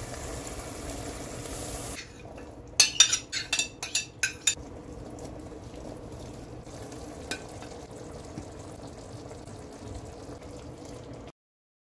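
Ground chicken mixture cooking in a frying pan, hissing as broth is poured in. About three to four seconds in comes a run of sharp clicks and knocks as ingredients go into the pan. It then settles into a steady, quieter sizzle with stirring, and the sound cuts off suddenly near the end.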